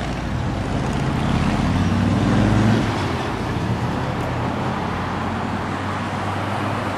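Road traffic going by, a steady rumble of cars and trucks. One vehicle's engine rises in pitch as it speeds up, loudest a little under three seconds in, then the traffic settles back to a steady hum.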